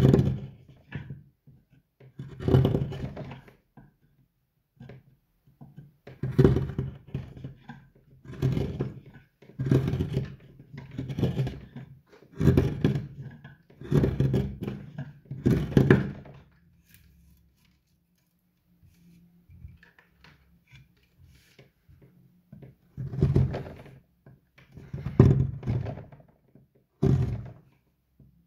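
Hand chisel paring into the wood of a carved bowl: a run of short, rough cutting strokes about one every one to two seconds, then a pause of several seconds, and three more cuts near the end.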